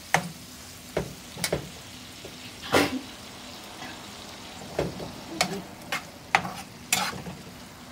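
A metal slotted spatula scrapes and taps against a non-stick frying pan, stirring tomatoes and spices sautéing in oil, with a low steady sizzle between the strokes. The loudest scrape comes about three seconds in, and the stirring pauses briefly around the middle.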